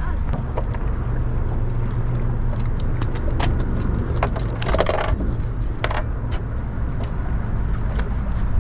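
Scattered knocks and taps of a freshly landed sheepshead flopping and being handled on a skiff's deck, loudest in a short cluster a little past halfway, over a steady low rumble.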